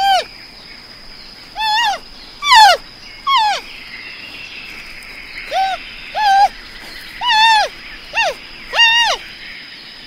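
An animal's calls: about eight short, clear calls, each rising and then falling in pitch, repeated at irregular intervals over a steady high-pitched whine.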